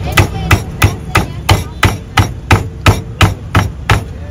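A steady run of sharp knocks, about three a second, each one an even, hard blow.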